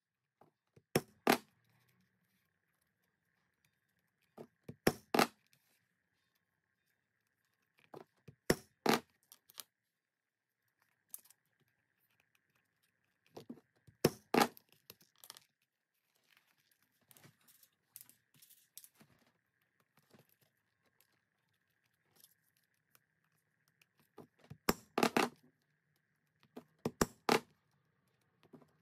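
Leatherworking hand tools at work: short groups of two to four sharp clicks and taps, repeating about every four seconds with quiet gaps between.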